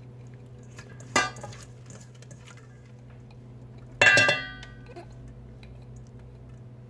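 Two clinks of a stainless steel mixing bowl being knocked in handling, about a second in and again near the middle. The second is louder and rings briefly. A low steady hum runs underneath.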